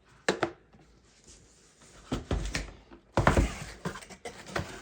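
Small packs being handled on a table: a few separate knocks and clicks, with a denser stretch of rustling and scraping about three seconds in.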